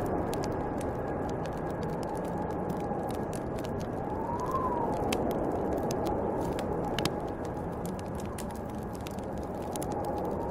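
Snowstorm wind blowing in a steady rush, with a howling whistle that rises and falls about four seconds in and again near the end, over the scattered pops and crackles of a wood fire.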